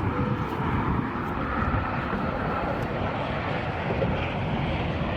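Sacramento River in flood, rushing fast and high: a steady roar of water with a low rumble.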